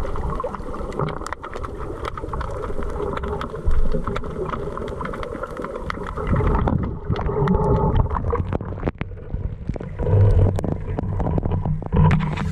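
Underwater sound of the sea picked up by a submerged camera: a muffled hiss with many sharp clicks and crackles. In the second half it turns to low, heavy sloshing and churning as the camera moves fast and comes up toward the surface.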